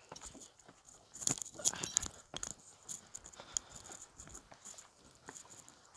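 Footsteps scuffing and crunching over rough rock strewn with dry leaves: a run of louder scrapes and clicks between about one and two seconds in, then scattered light clicks.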